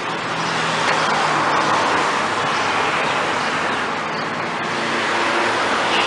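Steady car noise: an even rushing sound with a faint low hum underneath, as of a car running.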